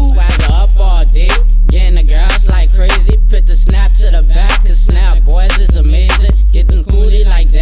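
Loud hip hop music with a heavy bass and a steady beat, and rapping over it.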